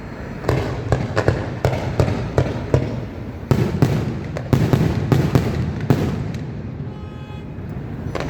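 Aerial fireworks shells bursting in a rapid series of sharp bangs, about a dozen or more, some close together. They ease off after about six seconds, leaving a low rumble.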